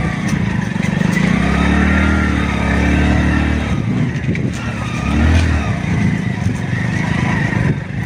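Motorcycle engine working hard up a steep, rough dirt climb. It pulls harder for about two seconds and again briefly a little later.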